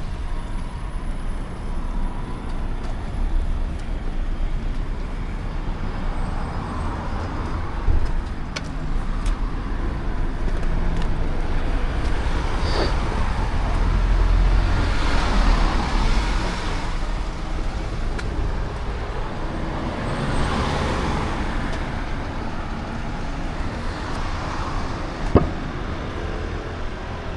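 Road traffic: vehicles passing on the road over a steady low rumble, with two louder passes in the middle and about three quarters through. A single sharp click comes near the end.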